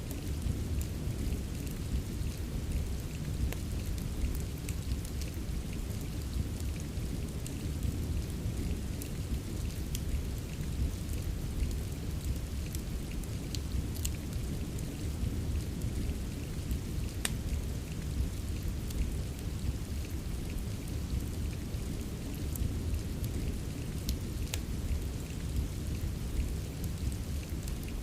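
Steady rain mixed with a crackling fireplace: an even hiss of rain over a deep, constant low rumble, with scattered sharp crackles throughout.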